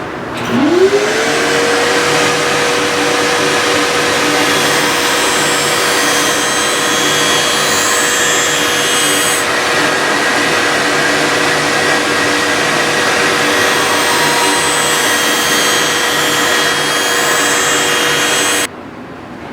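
Skate-sharpening grinder spinning up with a quickly rising whine, then running at a steady pitch with a dense grinding hiss as a figure-skate blade is ground. It cuts off suddenly near the end.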